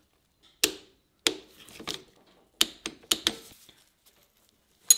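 Hand tools, a torque wrench among them, clicking and clinking on the cylinder nuts of a Kawasaki KX100's two-stroke engine during a top-end rebuild: about seven sharp metallic clicks spread unevenly, the loudest just before the end.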